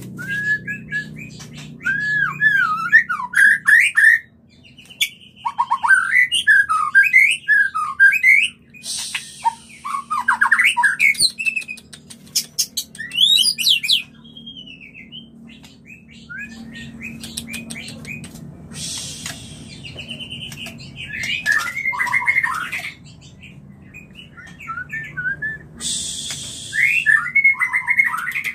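Male white-rumped shama (murai batu) in breeding condition, singing its mating song: varied whistled phrases mixed with harsh rasping notes and rapid clicks. It sings in bursts with short pauses and is quieter for a few seconds around the middle.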